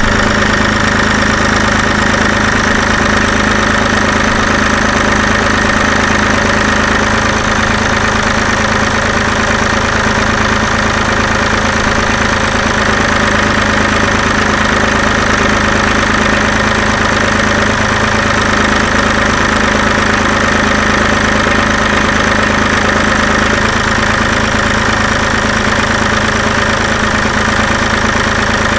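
David Brown tractor engine running steadily at an even speed, powering the log-loader crane's hydraulics.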